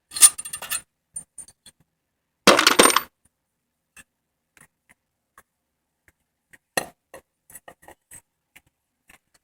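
Small metal engine parts clinking and clattering as they are handled: a quick run of light metallic clicks at the start, a louder clatter about two and a half seconds in, then a single sharp click and scattered small taps.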